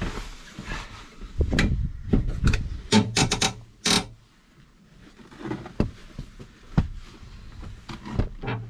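Eurocamper swivel seat adapter on a Sprinter van passenger seat pedestal being turned with someone sitting in the seat. It rubs and scrapes, with a series of clicks and knocks that come thickest about three to four seconds in.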